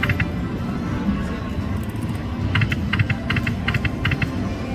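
Video slot machine's game sound effects and music during a spin, with a quick run of short electronic tones partway through as the reels land, over a steady low background hum.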